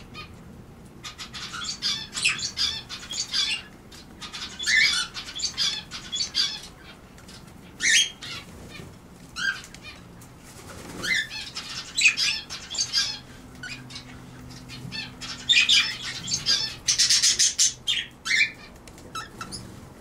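Small aviary birds fluttering their wings in repeated short bursts, with a few brief chirps between the bursts.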